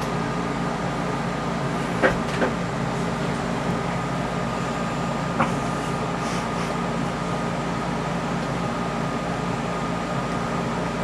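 Steady machine hum with a constant tone, broken by a few short sharp clicks: two about two seconds in and one more a little after five seconds.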